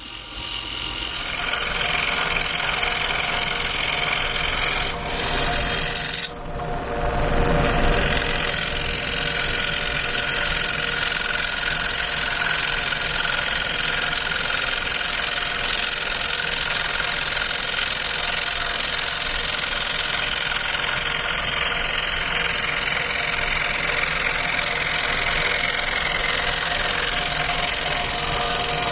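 Scroll saw running steadily with its blade cutting through wood, with a brief drop in level about six seconds in.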